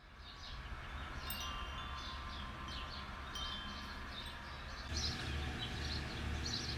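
Wind chimes ringing: many short high tones overlapping and fading, with a low pulsing hum coming in about five seconds in.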